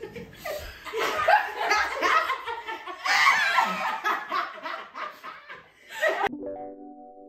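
A group of friends laughing and shrieking together, many voices overlapping. The laughter cuts off suddenly about six seconds in, giving way to a few soft, sustained musical notes.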